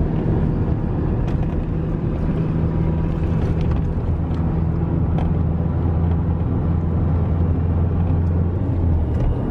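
Steady low drone of a car's engine and tyres on the road, heard from inside the cabin while cruising along a highway.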